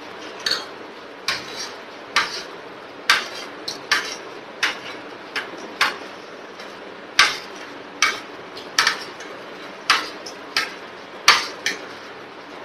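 A metal spoon and fork clinking and scraping against a plate, about twenty sharp irregular strikes, gathering the last of the rice off the plate.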